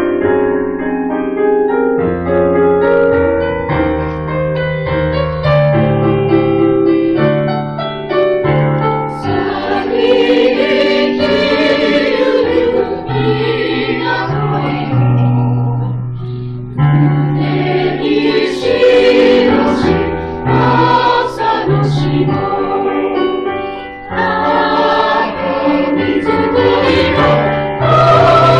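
Small mixed choir, mostly women's voices with a couple of men, singing in harmony from songbooks; the singing runs on continuously, with a brief dip in loudness near the end.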